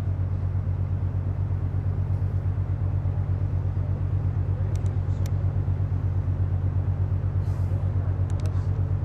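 Steady low engine and road rumble of a moving vehicle, with a fast, even flutter in its loudness.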